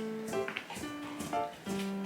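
Background music: a light instrumental tune of held melody notes over a steady beat.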